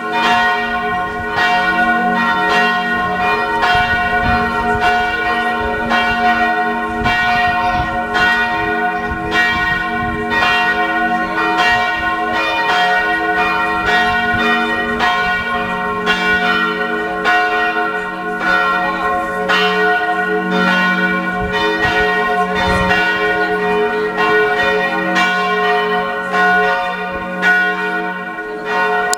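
Muristan tower church bells pealing: strokes follow one another about every half second to second, over a continuous ringing of several overlapping bell tones.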